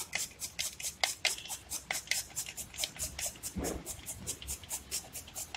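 A carrot being grated finely on a hand grater: rapid, regular rasping strokes, about five a second, with one soft knock about three and a half seconds in.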